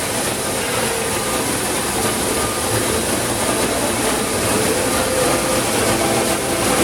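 Oxy-fuel cutting torch running with a steady, dense hiss while cutting thick steel plate.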